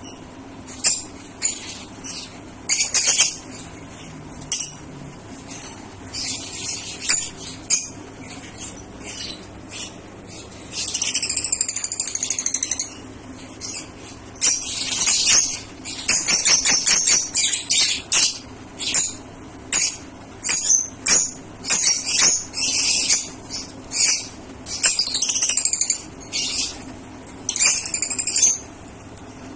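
A colony of lovebirds calling: shrill, high-pitched chirps and squeaky calls in quick runs, some sweeping up and down, busiest about halfway through. A faint steady low hum runs underneath.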